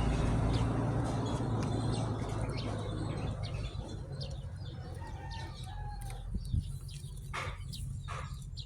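Short bird calls and chirps scattered over a low steady hum that slowly fades, with the sharpest calls near the end.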